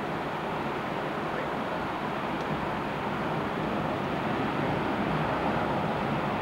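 Steady rushing of ocean surf breaking on a beach, mixed with wind, a little louder near the end.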